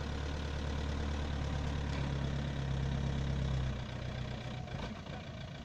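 A Toyota Land Cruiser's engine runs at low revs as the 4x4 crawls slowly over granite boulders. Its steady low drone eases off a little under four seconds in.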